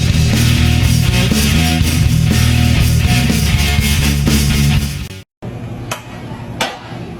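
Loud rock music with guitar that cuts off abruptly about five seconds in. A moment of dead silence follows, then quieter background noise with two sharp knocks.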